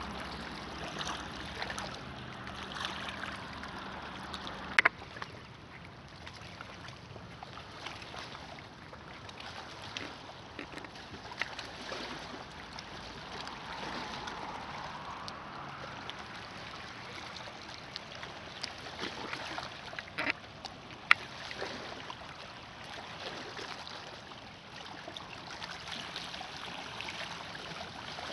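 Small lake waves lapping and gurgling against a rocky, pebbly shore, with a little wind on the microphone and a few sharp clicks.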